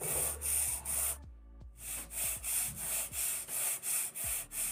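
Sandpaper on a wooden sanding block rubbed back and forth over a polystyrene foam wing piece, shaping its edge. Rasping strokes about two a second, with a brief pause about a second in.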